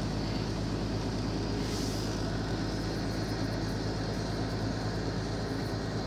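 Freightliner truck's diesel engine running steadily, a constant low drone with cab and road noise, heard from inside the cab.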